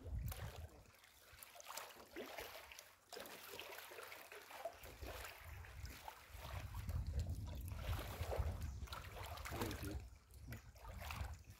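Wind rumbling on the microphone over lapping river water, the rumble stronger in the second half.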